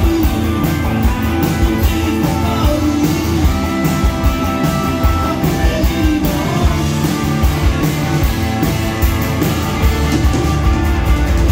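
Live rock band playing through a stage PA, heard from the crowd: guitars and bass over a steady drum beat, with a trumpet joining in.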